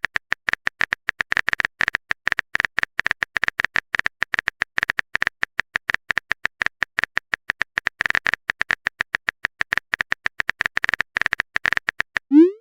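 Rapid, even stream of short clicking blips, about nine a second, each with a sharp high tick: a text-typing sound effect of the kind played while chat text appears.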